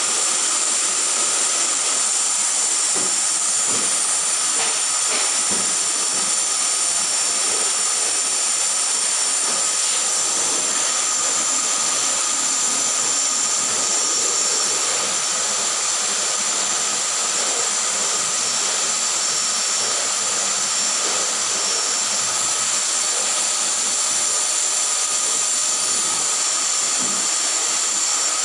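A vacuum cleaner running steadily as its floor nozzle is pushed over a wooden floor: a constant high whine over a loud hiss.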